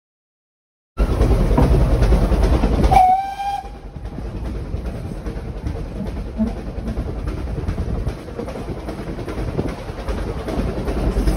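A narrow-gauge steam locomotive's whistle gives one short blast a couple of seconds in, over the train's running noise. After the whistle the running noise carries on at a lower level.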